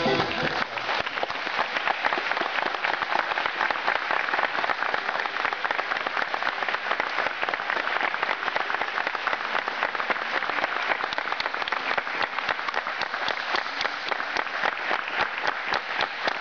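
Audience applauding, a steady dense clapping that holds for the whole stretch.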